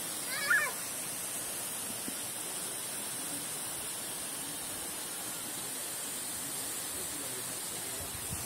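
Steady rushing noise of a waterfall and its spray. About half a second in, a brief high-pitched call cuts through once.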